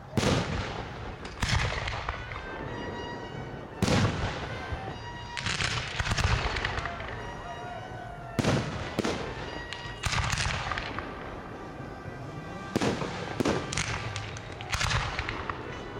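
Aerial fireworks shells bursting: about a dozen sharp bangs, several in quick pairs, each followed by a trailing echo.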